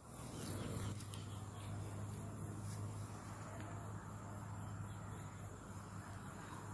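Insects chirping in a high, evenly pulsing pattern over a low, steady hum.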